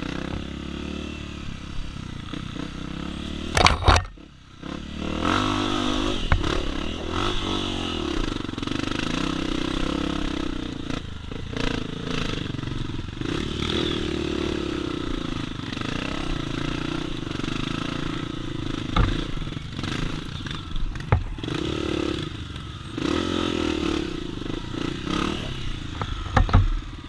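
A 250 cc single-cylinder four-stroke trail motorcycle riding over rough ground, its engine note rising and falling with the throttle. Hard knocks and clatter come at times, loudest about four seconds in and again near the end.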